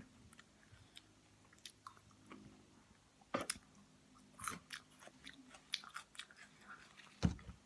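A person eating with the mouth close to the microphone: scattered wet mouth clicks and chewing, with a few louder smacks.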